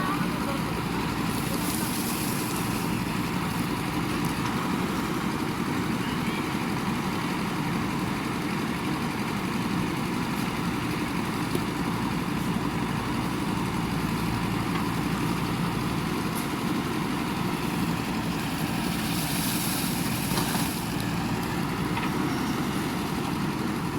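JCB 3DX backhoe loader's diesel engine running steadily, with two short hisses, about two seconds in and again about nineteen seconds in.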